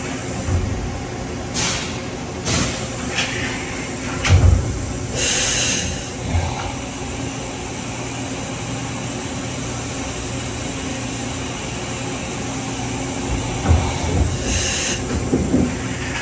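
Mori Seiki MH-63 horizontal machining center running with a steady hum. A few clunks sound, the loudest about four seconds in, with short hissing bursts about five seconds in and again near the end, as its pallet table moves to a new position.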